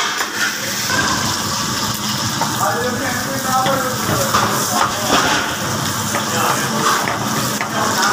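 Indistinct voices over a steady hiss of kitchen noise.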